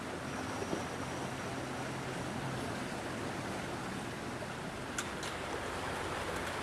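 Steady outdoor rushing background noise with a faint low hum, broken by two quick clicks about five seconds in.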